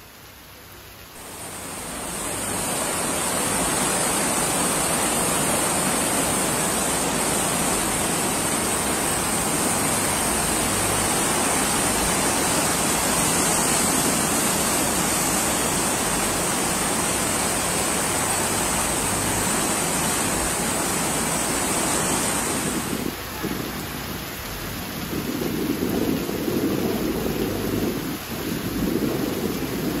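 Muddy floodwater rushing through a flooded desert river channel: a loud, steady rushing noise that fades in over the first two seconds. About three quarters of the way through it gives way to a quieter flow of shallow water spreading across a flooded riverbed, with an uneven low noise that swells and falls.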